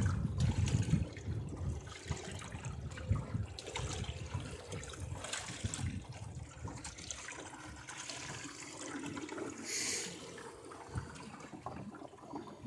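Water splashing and gurgling along the hull of a small sailboat under way, loudest in the first second, with a short hiss about ten seconds in.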